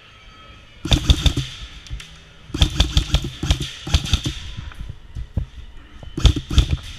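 Airsoft electric rifles firing in rapid bursts with a mechanical clatter. There are three bursts: a short one about a second in, a longer one from about two and a half to four seconds, and a short one near the end.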